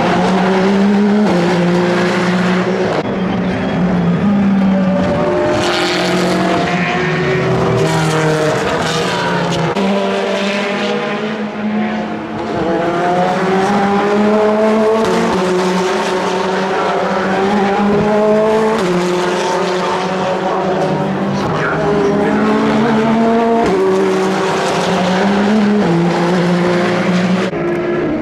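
Several endurance race cars' engines running hard, their pitch stepping up and down over and over with gear changes as they accelerate and slow.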